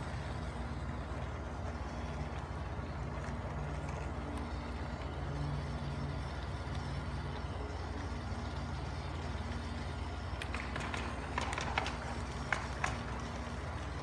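A 1/16 scale radio-controlled M-113A2 model tank driving over stone paving: a steady low running hum with a fast, fine clatter from its tracks. Between about ten and thirteen seconds in come a few sharper clicks and rattles.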